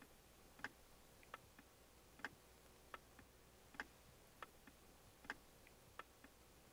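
A clock ticking faintly and evenly, a little more than once a second, over near silence.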